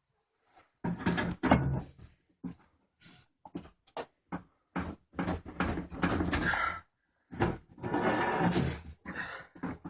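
Irregular knocking, clattering and scraping of an LG washing machine's drum assembly being forced apart.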